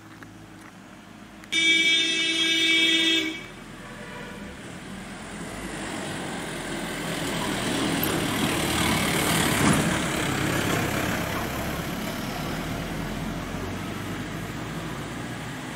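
A vehicle horn sounds once, held for nearly two seconds. A Mahindra Bolero Pik-Up truck then drives past, its engine and tyre noise growing louder to a peak about halfway through and slowly fading.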